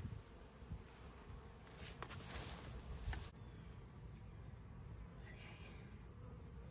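Honeybees buzzing around an open hive: a faint, steady hum. A brief hiss comes about two seconds in.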